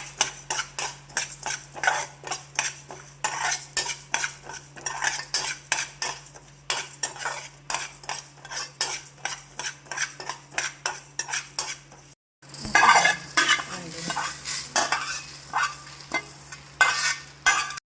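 A spoon stirring and scraping whole spices roasting in a pan with a little oil, quick strokes two or three a second over a faint sizzle. After a brief break about twelve seconds in, the stirring resumes louder.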